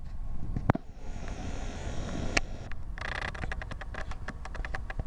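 Suzuki Jimny engine running faintly at a distance under a low wind rumble, with a few sharp clicks early on and a quick run of clicks in the second half.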